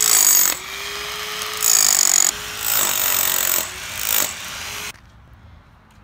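Electric demolition hammer chiselling old mortar and concrete off a pool's coping edge, in several bursts of hammering with the motor whining steadily between them. It stops abruptly about five seconds in.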